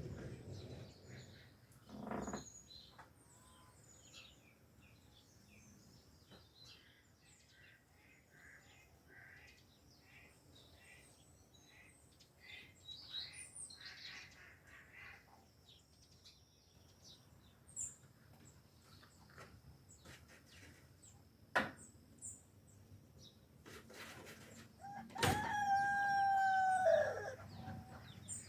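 Small birds chirping, then near the end a rooster crowing once, a long call of about two and a half seconds that drops in pitch as it ends. A single sharp knock comes a few seconds before the crow.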